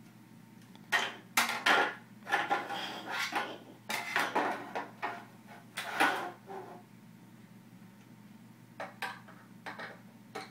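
Knocks and clatter of a plastic toy car and a drill being handled, in quick irregular groups, then a few light taps near the end. No drill motor is running.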